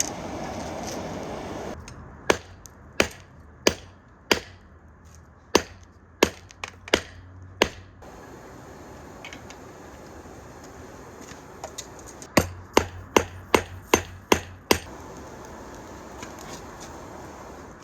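Hand hammer striking hot steel on an anvil while forging a chain link: about nine separate blows, each with a short metallic ring, then after a few seconds a quicker run of about eight blows. A steady rushing noise is heard first and stops about two seconds in.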